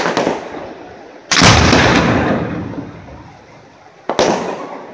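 Aerial firework shells bursting overhead: a sharp bang at the start, a louder one about a second and a half in, and another about four seconds in, each fading out over a second or two.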